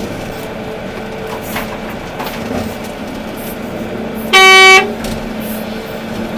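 Volvo EC380D excavator's diesel engine running steadily, with a single short horn blast a little past four seconds in.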